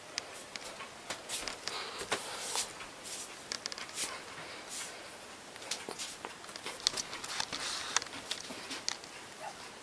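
Footsteps and small handling clicks and rustles in a small room, irregular sharp ticks over a faint hiss.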